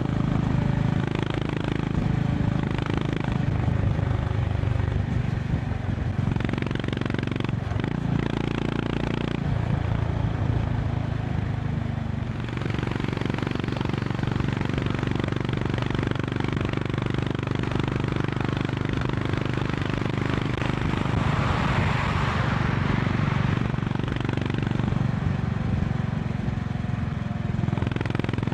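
Honda CB350 RS's air-cooled single-cylinder engine running steadily at highway speed, with wind and road noise. Its engine note changes a few times in the first ten seconds, and a broad rush of noise swells and fades about two-thirds of the way through.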